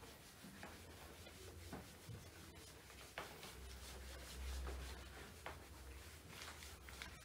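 Whiteboard eraser wiping marker off a whiteboard: faint rubbing strokes with a few light taps.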